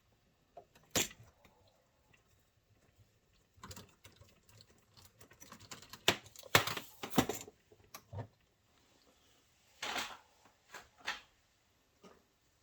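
Irregular light clicks and taps of small hard objects being handled, with a quick cluster of them around the middle and a few more near the end.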